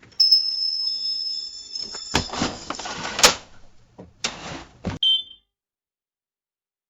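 Cash register sounds: a steady high bell-like ring for about two seconds, then rattling mechanical clatter with a sharp click, like the drawer sliding out. A second short clatter follows, then a brief high beep just after the five-second mark.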